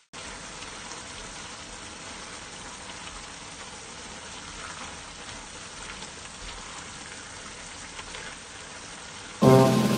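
Strips of hairy gourd sizzling with a steady hiss as they are stir-fried in a wok, with a few faint light ticks. Piano music comes in sharply near the end.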